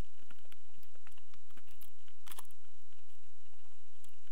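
Bush clock radio's speaker giving irregular crackles and clicks over a steady low hum, loudest about two seconds in.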